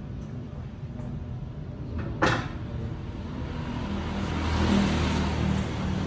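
A metal-framed folding table-bench being folded over into a bench, with one sharp metal clack about two seconds in and another near the end. A steady low rumble runs underneath and swells near the end.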